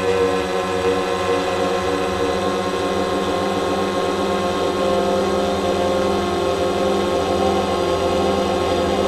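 Quadcopter drone's motors and propellers whirring steadily in flight, a dense, even multi-tone hum heard from on board.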